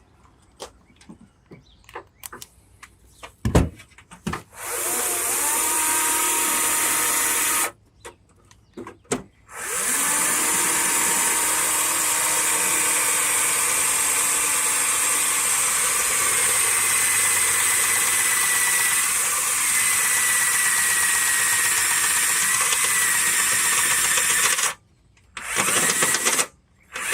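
Handheld power drill running in three stretches with sudden starts and stops: a run of about three seconds, a long steady run of about fifteen seconds, and a brief burst near the end. Before the first run there are a few knocks of handling.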